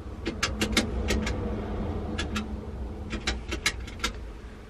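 Push buttons on a payphone keypad being pressed one after another to dial a number: a run of sharp clicks at an uneven pace, some in quick pairs, over a steady low rumble.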